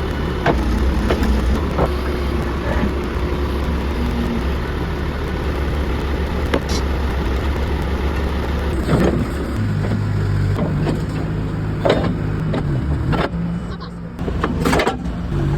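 Excavator diesel engine running under hydraulic work while the thrown track is forced back over the idler, with scattered metal knocks and clanks from the track and undercarriage. The engine note shifts higher about two-thirds of the way through as the hydraulics take load.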